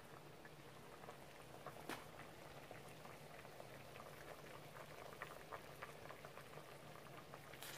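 Pumpkin slices boiling in sugar syrup in an open metal pot: faint, steady bubbling with many small pops, and one sharper pop about two seconds in.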